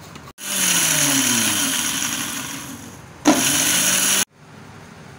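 Electric spice grinder (mixer grinder) coarsely grinding whole fennel, coriander and cumin seeds with chilli flakes: one motor run of about two and a half seconds, then a short pulse of about a second that cuts off suddenly.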